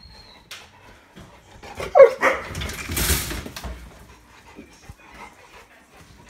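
A dog gives one short bark about two seconds in, followed by about a second of rustling noise.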